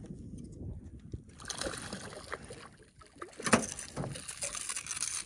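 Small barramundi thrashing and splashing at the water's surface beside the boat as it is reeled in on a lure, with several sharper splashes near the middle.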